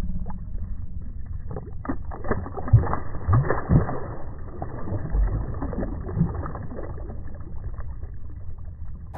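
A redfin (European perch) splashing and thrashing in shallow water as it is let go from a hand. The splashing is sharpest about two to four seconds in and is muffled, over a steady low rumble of freeway traffic.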